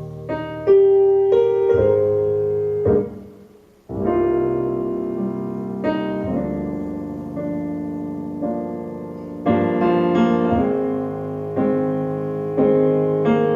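Solo piano playing in the instrumental break of a slow ballad, played back over a hi-fi speaker system. The notes die away almost to silence about three seconds in, then the piano picks up again.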